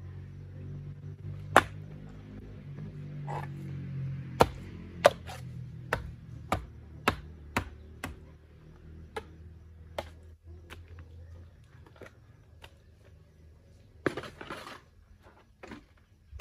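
A wooden pole rams packing clay into the gaps of a dry stone wall, giving repeated sharp knocks against the stones, about one or two a second and loudest in the first five seconds. About two seconds before the end there is a scraping. A low steady hum sits underneath the first part.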